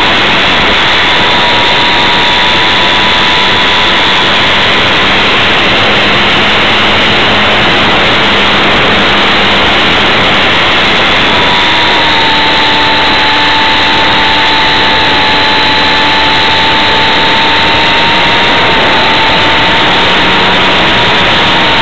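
Small radio-controlled model airplane's motor and propeller running steadily in flight, heard from a camera mounted on the plane: a loud, even rush of prop and wind noise with a steady whine that drops slightly in pitch about halfway through.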